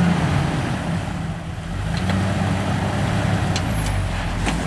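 Jeep Wrangler TJ engine running at low revs as the Jeep crawls over rocks, its pitch wavering slightly, with a few light clicks about two seconds in and again near the end.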